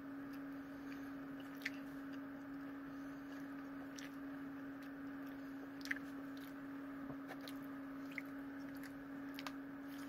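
Quiet chewing of Little Caesars Pepperoni Crazy Puffs, bready bites that are a little hard, with a few sharp mouth clicks, over a steady low hum.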